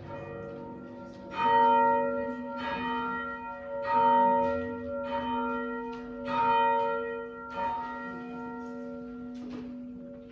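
Church bell ringing before the service: about seven strikes a little over a second apart, every other one louder, each left to ring on and overlapping the next, dying away near the end.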